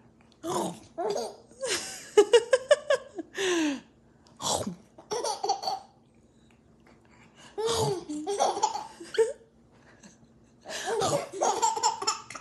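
A young baby laughing in about five bouts with short pauses between, including a quick run of belly-laugh pulses about two seconds in.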